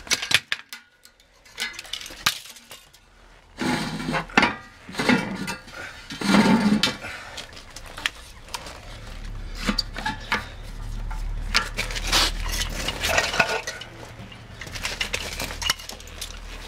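Irregular metal clanks and clinks of a steel bar clamp and tools being handled against steel car wheel rims.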